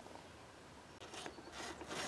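A quiet pause with two brief scraping noises in the second half.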